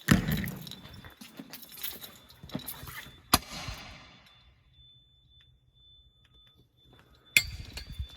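Sharp metal clacks of a manual fire alarm pull station being worked: one right away and another about three and a half seconds in, each ringing briefly, then another clunk near the end. No alarm follows, because the station fails to trip, which the tester takes as a sign it needs replacing.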